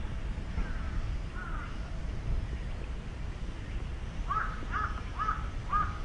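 Crow cawing: a couple of faint caws about a second in, then four harsh caws about half a second apart near the end, over a steady low rumble.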